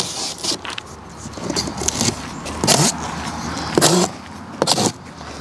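A large cardboard shipping box being opened by hand: several sharp scrapes and rips of cardboard, over a low steady rumble.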